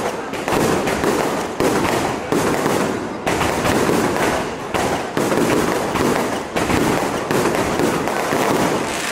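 Fireworks going off in a continuous barrage: dense crackling with a sharper bang roughly once a second.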